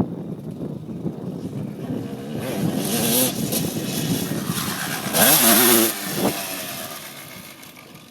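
2002 Suzuki RM250 single-cylinder two-stroke dirt bike engine revving up and down as it is ridden, loudest about five seconds in, then fading away. The engine is worn and due for a full rebuild.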